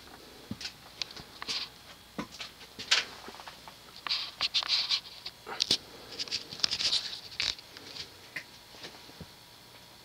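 Irregular rustling, scuffing and clicking as the camera is handled and moved, loudest in the middle of the stretch, over a faint steady background.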